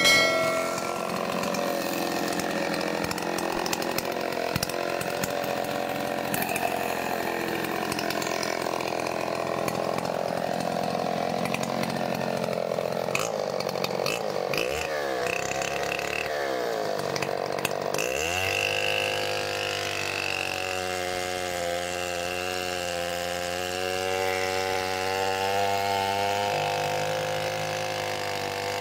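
Large gasoline chainsaw with a 30-inch bar running. Its engine speed wavers, then drops and swings up and down about halfway through, and then holds a steady high pitch as the bar sinks into a log.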